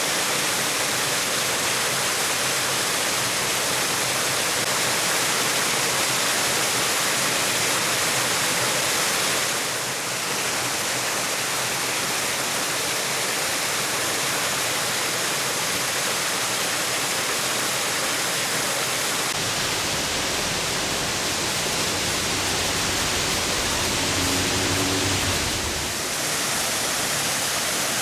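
Steady rushing of water from a wide, low river waterfall. A low rumble joins in for several seconds in the second half.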